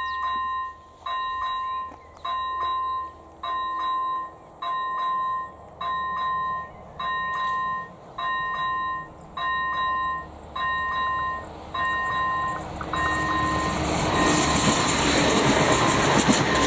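Level-crossing electronic warning bell (ZV-01) ringing steadily, one ding a little over a second apart, signalling that a train is due. From about twelve seconds in, a passenger train's noise grows over the bell as the train reaches the crossing, loudest near the end.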